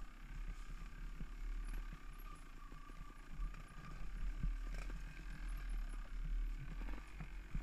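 Off-road bike riding over a rough, leaf-covered trail: a steady low rumble with frequent knocks and rattles over the bumps, and a faint steady whine.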